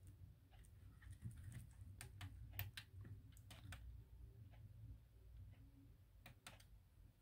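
Faint, irregular clicks of the push-buttons on an Access HD portable TV's side panel being pressed, some in quick pairs, over a low hum.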